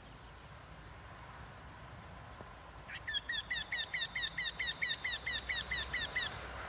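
Eurasian wryneck singing: a run of about sixteen short, evenly spaced notes, about five a second, starting about three seconds in and lasting some three seconds.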